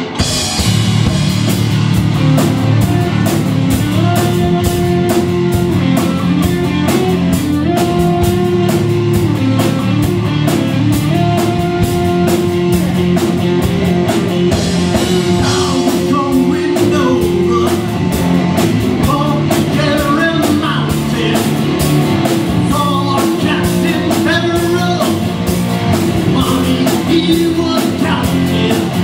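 Live rock band playing at full volume: electric guitars, electric bass, and a DW drum kit with Zildjian cymbals keeping a steady, driving beat. The band comes in loud right at the start.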